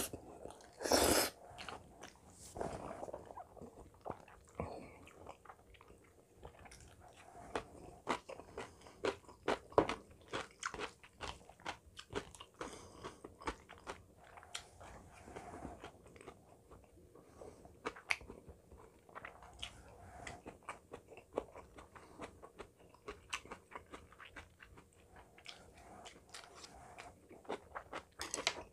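Close-miked eating of curry rice with glass noodles: a loud noodle slurp about a second in, then steady chewing with many short mouth smacks and clicks.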